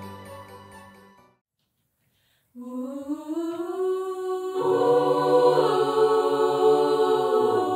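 Intro music fades out in the first second or so. After a short silence a mixed choir starts singing a cappella without words, holding sustained chords. Lower voices join a little past halfway and the sound grows fuller.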